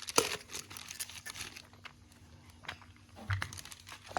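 Plastic packaging crinkling while mixer-grinder parts are handled, with scattered small clicks and taps and a sharp knock near the end.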